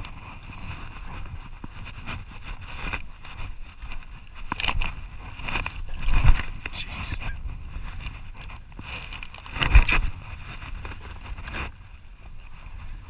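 Steady low rumble of boat and wind noise on a chest-worn camera, with scattered knocks and rubbing from handling a spinning rod and reel. Two louder thumps come about six and ten seconds in.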